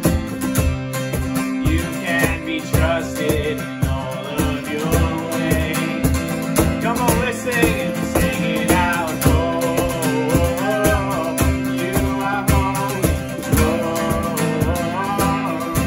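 Acoustic guitar strummed with a steady cajon beat, with singing coming in about two seconds in: a live worship song played on guitar and cajon.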